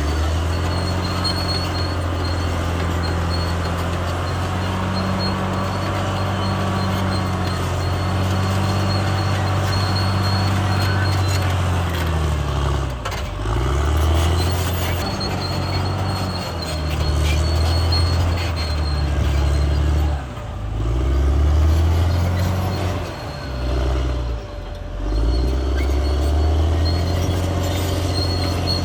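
Caterpillar D6R XL crawler bulldozer's diesel engine running steadily, then its revs dropping and picking up again several times in the second half.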